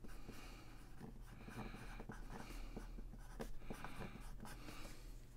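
Permanent marker writing on a cardboard box lid, a faint run of short scratchy strokes as a name is written out.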